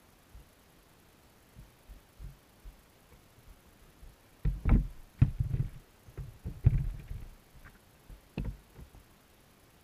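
Dull, muffled underwater thumps and knocks as rock bass and bluegill bump against a GoPro in its waterproof housing and the wire mesh of a minnow trap. A few faint ticks come first, then a thick run of thumps for about three seconds from the middle, and one more near the end.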